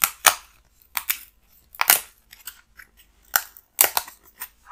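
Die-cut foam-board puzzle pieces being pressed out of their sheet by hand. The result is a string of crisp crunchy pops and snaps, about seven, irregularly spaced.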